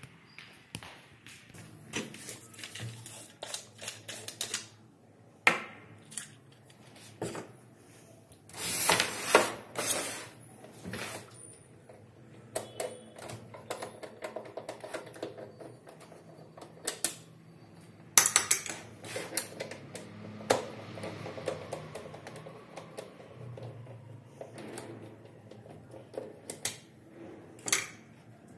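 Hands handling the plastic case of an APC Back-UPS RS 600 and working its rear-panel screws with a small screwdriver: irregular clicks, taps and knocks of plastic and metal, with a few louder clatters.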